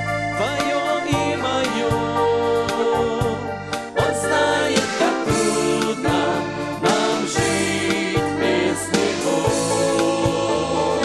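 Music: a Christian song played by a band, keyboard-led, with a steady beat.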